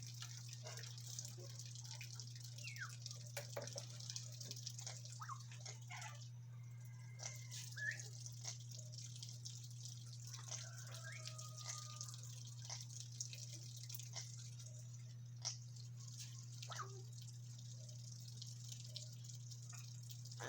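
Parrots making soft scattered clicks and short chirps, with a brief held whistle about halfway through, over a steady low hum.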